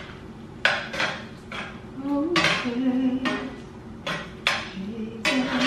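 A cooking spoon scraping and clinking against a stainless-steel skillet as sausages and peppers in sauce are stirred, in a series of short, irregular strokes.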